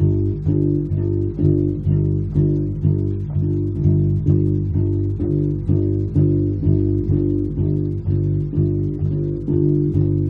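Electric bass guitar plucking the same low G over and over, held at the third fret of the E string, in an even double-time rhythm of about three notes a second.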